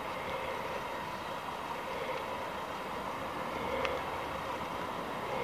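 Steady outdoor background noise, a constant rumble and hiss like distant traffic, with one short click a little under four seconds in.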